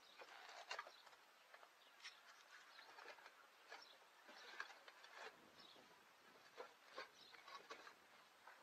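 Near-silent outdoor ambience with scattered faint clicks and short chirps.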